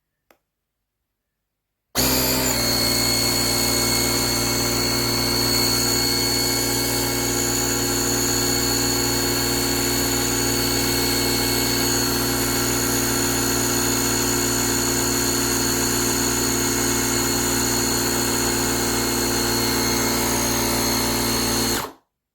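Small electric air compressor built into a YaberAuto 6000A jump starter pack running steadily. It switches on about two seconds in and cuts off abruptly near the end.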